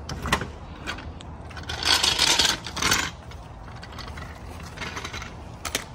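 Hand tools working on a car wheel as it is bolted on: scattered metal clicks, with two short, louder rasping bursts about two and three seconds in.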